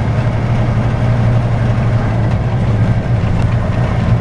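Semi-truck's diesel engine running steadily at low speed, heard from inside the cab as a constant low drone with road noise from the gravel road.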